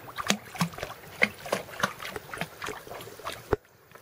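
Pool water splashing and sloshing in quick, irregular splashes as a five-week-old Weimaraner puppy paddles. A sharp knock about three and a half seconds in, after which the sound cuts off suddenly.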